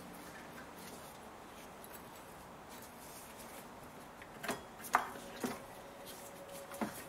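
Faint handling noises as a rubber serpentine belt is worked off its pulleys, with four light knocks in the second half.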